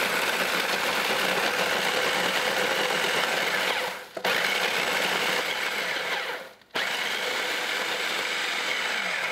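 Food processor motor grinding Oreo cookies into crumbs, running steadily and cutting out briefly twice, about four and six and a half seconds in, as the button is released and pressed again.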